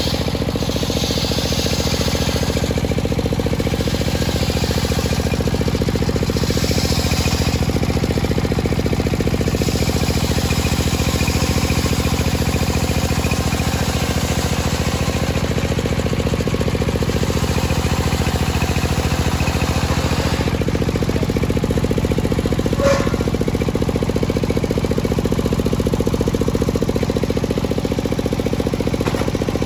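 Homemade table circular saw ripping a teak log lengthwise: a steady running drone with the hiss of the blade cutting over it, stronger in the first several seconds. A single sharp tick about two-thirds of the way through.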